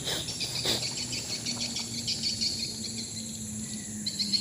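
Insects chirping in a rapid, pulsing chorus over a steady high buzz, with two short clicks within the first second.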